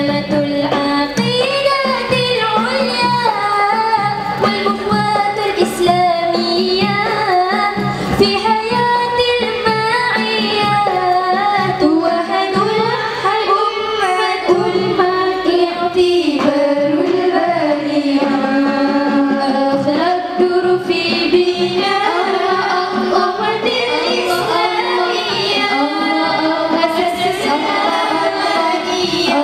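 A group of girls singing a melodic song in unison into microphones, with light hand-drum accompaniment.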